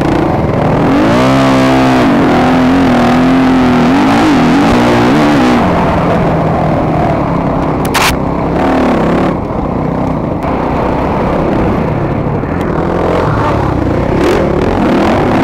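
Dirt bike engine, a 2008 Yamaha YZ250F's 250 cc four-stroke single, racing, its pitch rising and falling with throttle and gear changes. There is a sharp click about eight seconds in.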